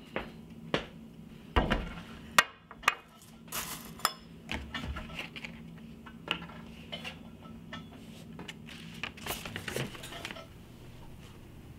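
A bowl and a plastic milk jug set down on a table, with a series of sharp clinks and knocks of dishes and cutlery. Near the end, paper rustles as a letter is picked up.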